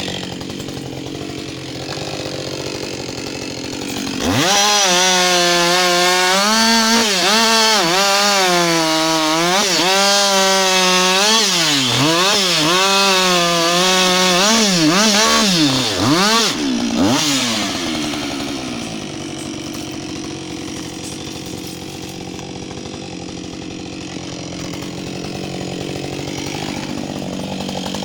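Husqvarna 560XP two-stroke chainsaw idling, then opened to full throttle about four seconds in and cutting through a felled trunk for about twelve seconds, its revs dipping and recovering under load, before dropping back to a steady idle.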